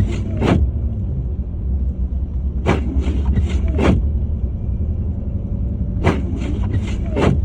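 A car driving, with a steady low rumble from engine and road. Every three seconds or so comes a short cluster of four or five quick whooshes.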